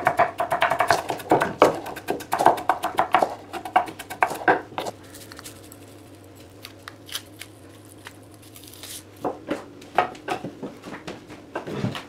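Kitchen knife chopping garlic cloves on a wooden chopping board: a quick run of sharp taps for the first few seconds, then quieter, with only scattered clicks and taps.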